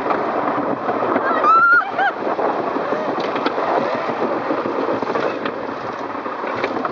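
Wild mouse roller coaster car running along its steel track: a steady rattle and rumble of the wheels with wind noise, and brief high squeals about a second and a half in.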